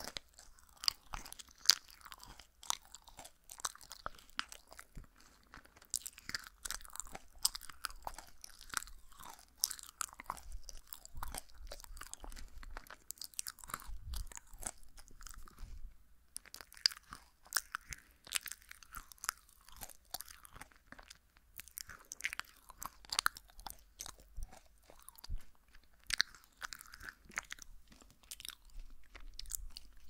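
Close-miked chewing of Halloween jelly candies: many quick, irregular clicks and crunches of the mouth working the jelly, right at a binaural microphone.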